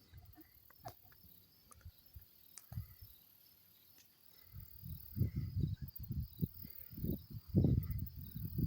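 Insects, likely crickets, chirping steadily and faintly in the background. From about halfway through, irregular low rumbles on the microphone come in and grow louder.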